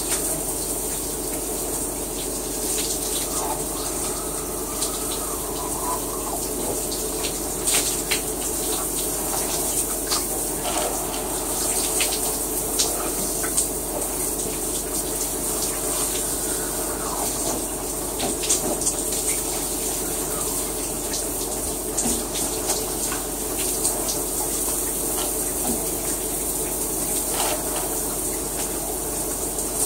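Shower running: a steady spray of water with irregular splashes and drips.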